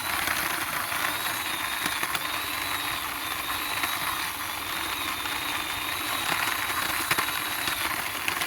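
Wheels of a toy bus rolling over the ground as it is pushed along by hand: a steady rolling noise, with a faint thin high whine through most of it.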